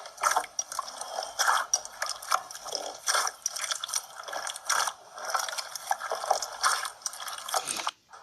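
Slime being squeezed and worked by hand: a continuous run of wet, crackling pops and squishes, several a second, that cuts off suddenly near the end.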